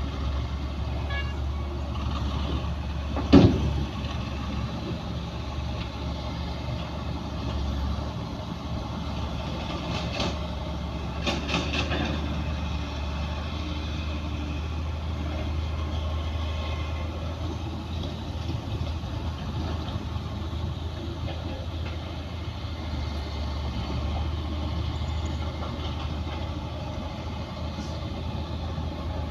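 Heavy diesel earthmoving machinery running steadily with a low engine hum. A single sharp bang comes about three seconds in, and a few short clanks follow near the middle.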